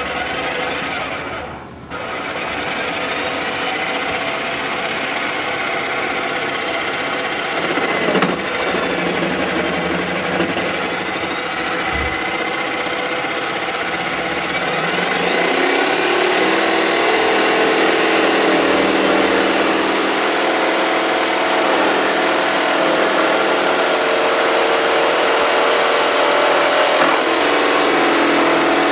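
A DeWalt DW349 500 W jigsaw, mounted under a homemade table saw, runs steadily. It stops briefly near the start, and its note shifts a couple of times after that.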